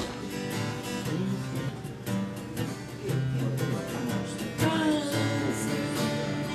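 Acoustic guitar strumming the accompaniment to a country gospel song, an instrumental passage between sung lines.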